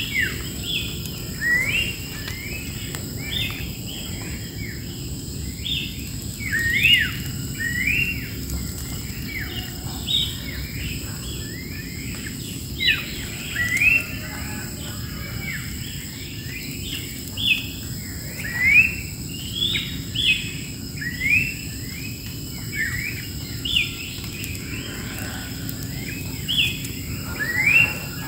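Wild songbirds chirping and calling, with many quick, high slurred notes that come and go in busy clusters, over a steady high-pitched hum and low background noise.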